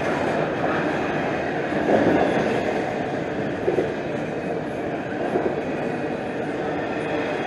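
Freight train cars rolling past on the rails: a steady, dense running noise, with brief louder moments about two seconds in and near the middle.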